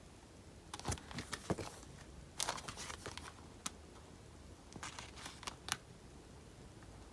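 Sticker sheets being handled: soft paper crinkling and rustling with small clicks, in a few short bursts.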